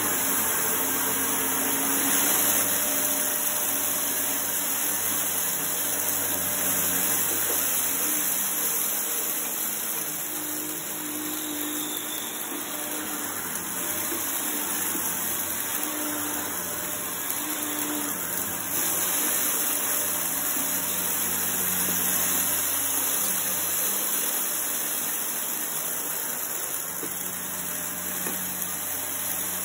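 Shark upright vacuum cleaner running steadily while being pushed back and forth over carpet, sucking up scattered debris. The pitch and loudness shift a little with each stroke.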